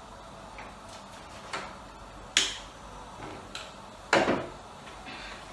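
Four separate sharp kitchen clicks and knocks, about a second apart, with the last one the loudest, about four seconds in. They come from working the gas stove's controls and pressing the range hood's switch.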